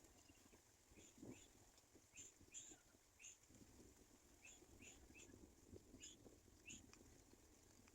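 Faint bird chirps, short and high, coming in quick groups of two or three and repeating throughout.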